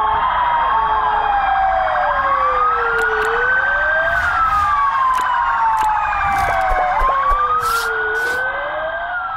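Several ambulance sirens sounding together: overlapping slow wails that rise and fall over a few seconds each, over a fast warbling siren tone.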